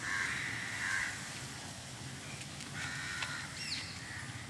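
Crow cawing: harsh caws in the first second and another call about three seconds in, over outdoor background noise.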